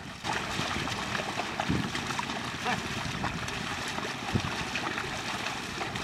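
Muddy water sloshing and splashing as a pair of bullocks drag a wooden leveling board through a flooded paddy field, with a few short, dull thuds from their hooves in the mud.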